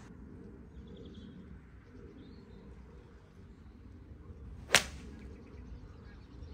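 A golf iron strikes the ball once on a full swing, a single sharp crack about three-quarters of the way through.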